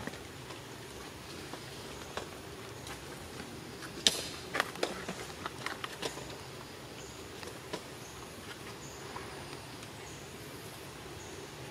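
Outdoor background ambience with a steady low hum, broken about four seconds in by a quick run of sharp clicks and taps lasting about two seconds, and one more click a little later. Near the end, a faint high chirp repeats about once a second.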